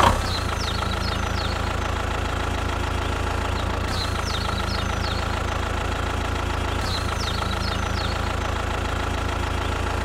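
Tractor-like engine idling steadily with a light knock, as a loop that repeats about every three seconds. A few high bird chirps recur in each repeat.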